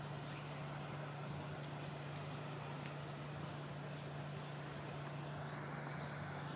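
300 hp Mercury Verado outboard pushing a pontoon boat along at a steady speed: an even low drone that neither rises nor falls, under a faint hiss.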